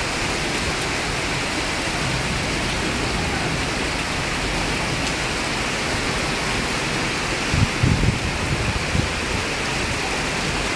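Steady rushing noise of water during flooding, with a few low thumps around the seven to nine second mark.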